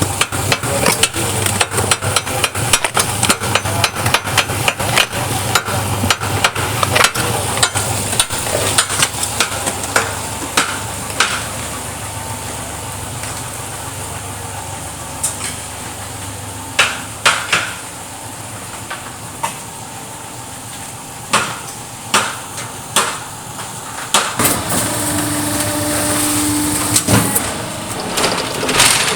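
Semi-automatic hydraulic paving-block moulding machine running: a dense, rapid rattle of knocks for roughly the first twelve seconds, then a steadier machine hum broken by scattered single knocks.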